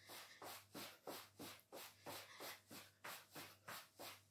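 Faint rhythmic shuffling and rubbing, about three strokes a second, from a person's body and clothing moving through a warm-up exercise, over a low steady hum.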